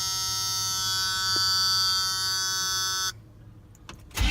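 A steady electrical buzz from the truck's ignition circuit, which cuts off suddenly about three seconds in. Just before the end, the C10's 350 small-block V8 begins cranking on a cold start.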